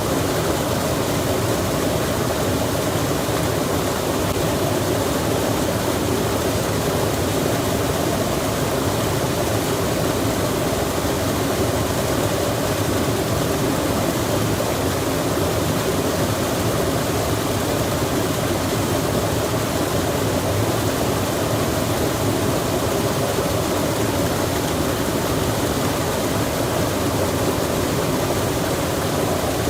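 Rain falling beside a flowing stream: a steady, even rush of water with no breaks or single drops standing out.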